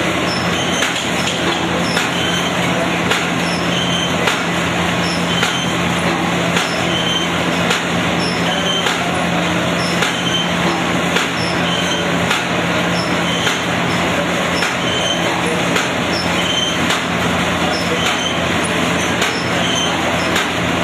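Paper bag making machine running steadily: a dense mechanical clatter over a low hum, with a short repeating tick about once a second.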